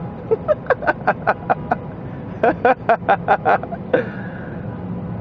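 Car horns tooting in fast rhythmic runs inside a road tunnel: about eight quick toots, a short pause, then about seven more and one last toot, over the steady low hum of idling traffic.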